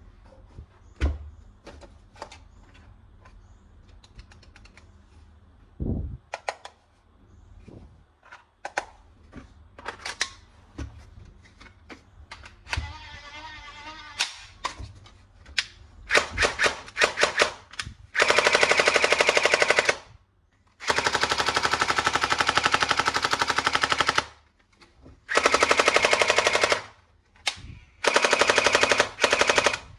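Toy machine gun firing its rapid electronic gunfire sound in four bursts of a few seconds each in the second half, after scattered clicks of plastic being handled.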